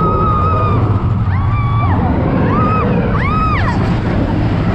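Roller coaster riders screaming, four held screams in quick succession, over the coaster's loud, steady rumble.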